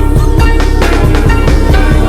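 Instrumental hip-hop beat with no vocals: heavy sustained bass, regular drum hits and melodic chords over the top.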